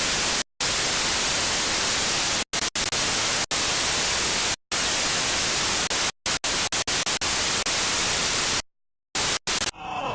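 Harsh, even static hiss like an untuned TV or radio, switching on and off abruptly many times, with the gaps coming faster and closer together after about six seconds before it cuts off just before the end.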